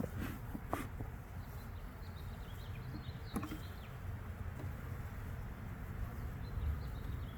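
Honey bees buzzing around an open hive under a steady low rumble, with a few sharp clicks and faint high bird chirps.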